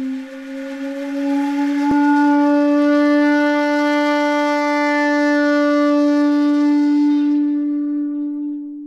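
One long held low note on a shakuhachi, bending slightly up in pitch as it swells over the first two seconds, then held full and steady before fading away near the end.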